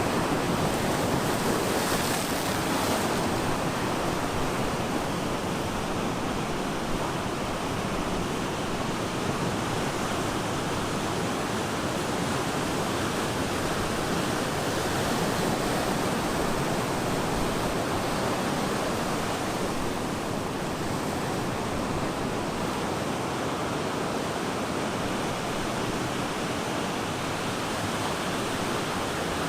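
Ocean surf breaking and washing on the shore: a steady, continuous rush of waves, swelling slightly now and then.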